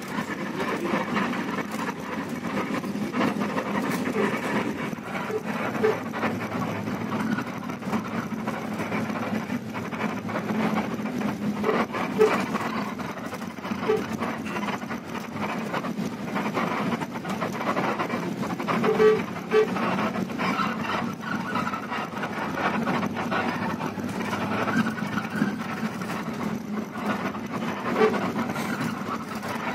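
Intercity coach on the move, heard inside the cabin: steady engine and road rumble with frequent small rattles and knocks from the body, and a few short beeps, some in pairs.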